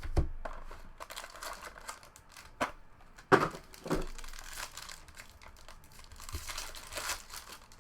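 Trading cards and plastic card sleeves being handled: crinkling and rustling with several sharp clicks and taps, the loudest about three seconds in.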